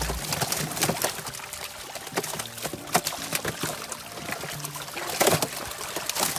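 Fish thrashing and splashing in shallow water crowded inside a seine net as it is sorted by hand, with water trickling and dripping. Irregular sharp splashes run throughout; the strongest come about three seconds in and again just past five seconds.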